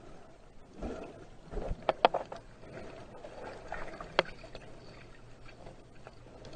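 Muffled water noise picked up by a camera underwater, with bubbles and swirling water. Sharp clicks sound in a quick cluster about two seconds in and once more just after four seconds.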